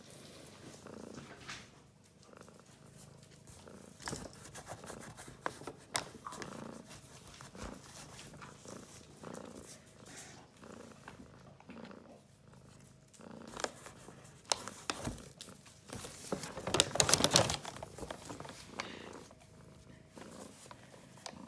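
A cat purring inside a paper carrier bag, with the bag's paper rustling and crinkling now and then; the loudest crinkling comes in a burst about three-quarters of the way through.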